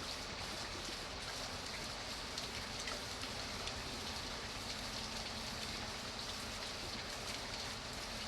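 Steady rain falling, with a dense patter of individual drops on a surface.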